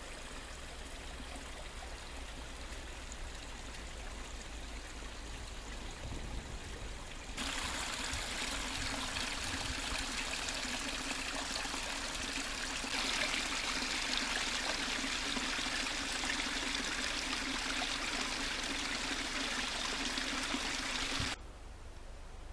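Stream water running and trickling through a beaver dam of piled sticks, a steady rushing that grows louder about a third of the way in and drops back near the end.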